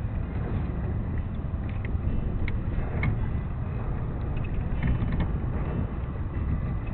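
Wind buffeting the microphone on a sailboat under sail: a steady low rumble, with a few faint ticks.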